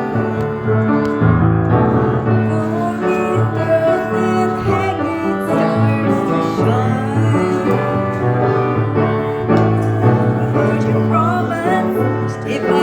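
A small gospel vocal group singing a slow hymn with piano accompaniment.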